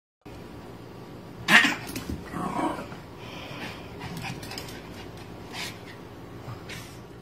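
Small puppy barking in play: one sharp bark about a second and a half in, then a weaker yip about a second later.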